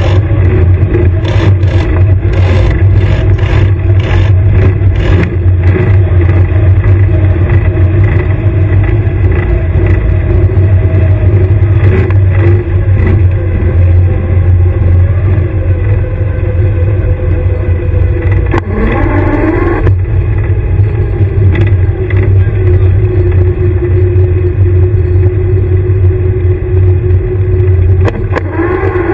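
Airsoft combat vehicle's engine running with a loud, steady low drone, with knocks and rattles in the first few seconds. A short rising whine comes about two-thirds of the way through.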